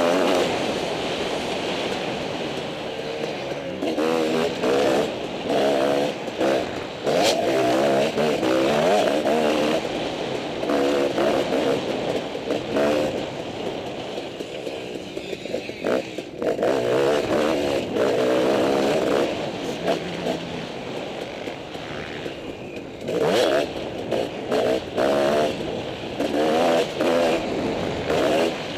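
On-board sound of a motocross dirt bike engine under hard riding. It revs up again and again, its pitch climbing with each burst of throttle through the gears, and drops back in quieter stretches where the throttle is rolled off.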